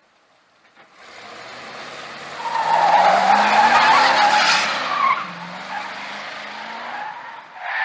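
A 1970s Chevrolet Camaro's engine revs up as the car comes on. Then its tyres squeal loudly for about two seconds as it slides sideways through a curve, and the engine runs on more quietly as it pulls away.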